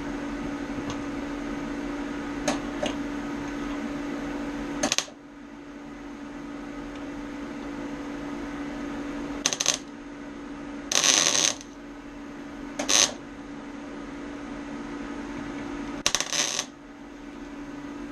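MIG welder laying short stitch welds on car body steel: about five brief bursts of welding arc, each under a second and a few seconds apart, over a steady hum.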